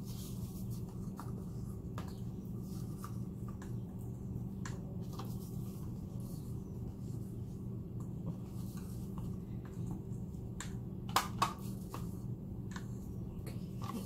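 Light clicks and taps of plastic paint bottles and cups being handled while acrylic paint is layered into a cup, with two sharper knocks about eleven seconds in. A steady low hum runs underneath.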